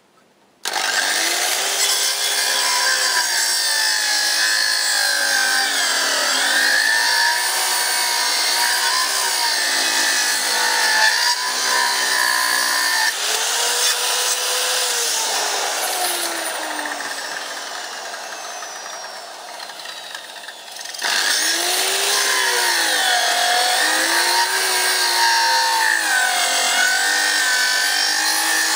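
Power saw cutting firewood, starting suddenly about a second in; its pitch wavers up and down as it bites into the wood. Past the middle it slows and fades for a few seconds, then comes back at full speed with a jump.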